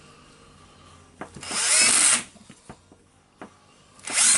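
A small cordless power screwdriver or drill motor spins in two short bursts, about a second each, with the second starting near the end. It is most likely driving in the screws of a drill's back cover.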